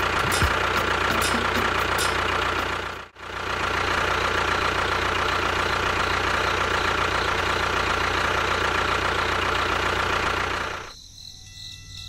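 Small motor running steadily, with a low hum and a steady whine. It cuts out for an instant about three seconds in and drops away about a second before the end.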